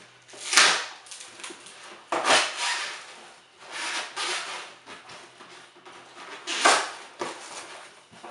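Rustling and scraping of a cardboard shipping box and its packing being unpacked by hand, in four louder swishes a second or two apart with softer handling noises between.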